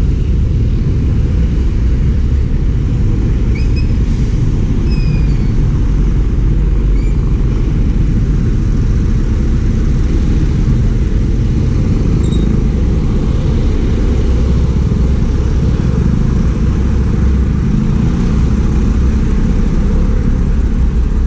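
Steady, loud low rumble of a vehicle under way: engine and road noise while driving.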